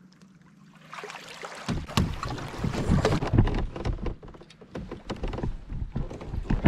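Fishing kayak being boarded and pushed off a shallow gravel shore: water sloshing against the hull with irregular knocks and scrapes, mixed with wind buffeting the microphone. The noise starts about two seconds in.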